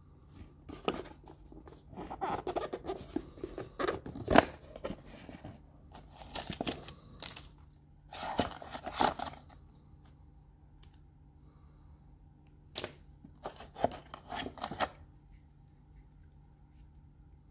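Rustling, scraping and clicking of a cardboard smartphone box and its packaging being handled as it is opened and the charger and cable are taken out, in several short bursts with pauses between. The loudest is a sharp knock about four seconds in.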